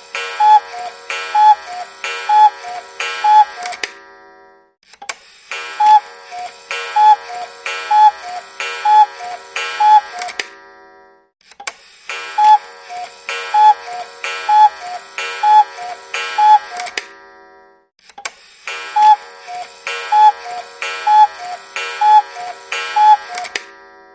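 Cuckoo clock alarm sounding: a two-note falling "cuckoo" call repeated about once a second. It comes in bursts of about five seconds separated by short pauses, each burst opening and closing with a click.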